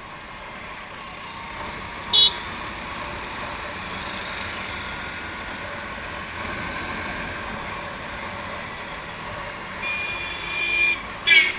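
Road traffic noise while riding along a busy town road. A short vehicle horn toot sounds about two seconds in, a longer horn sounds around ten seconds in, and another short toot follows near the end.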